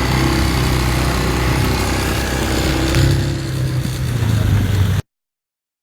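Motorcycle engine running amid street noise, with a slight change in engine pitch about three seconds in; the sound cuts off abruptly about five seconds in.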